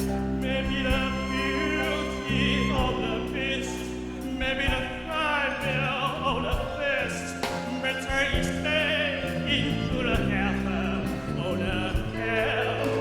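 Live jazz band playing an instrumental interlude of a slow ballad: a melody with vibrato over sustained bass notes.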